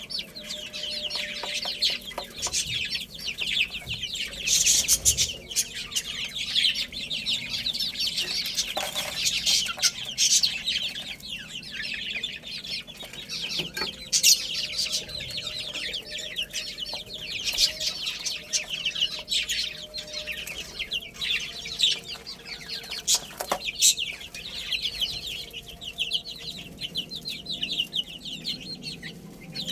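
A flock of baby chicks peeping, many short high-pitched calls overlapping without a break, with scattered sharp clicks among them.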